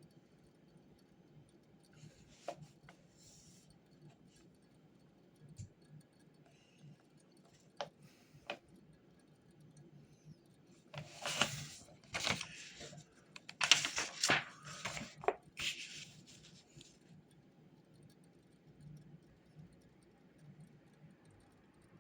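Handling noise at a desk: a few faint clicks, then about five seconds of loud rustling and crinkling with sharp clicks, starting about eleven seconds in, over a faint steady low hum.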